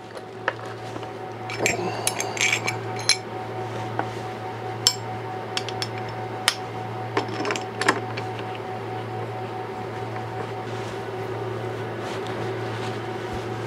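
Light metallic clicks and clinks from handling an aluminium router mount, screws and Allen keys, in scattered bunches over the first eight seconds or so. Under them runs a steady low hum.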